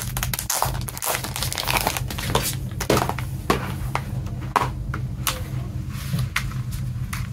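Clear plastic sleeve crinkling as a Blu-ray case is slid out of it, mixed with sharp clicks and knocks of the hard plastic case being handled and snapped open.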